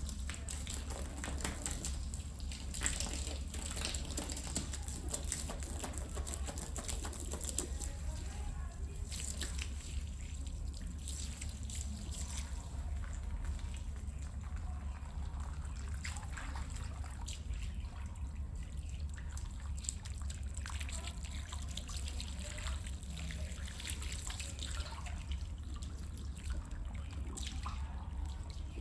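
Water splashing and trickling as a rug is washed, over a steady low hum.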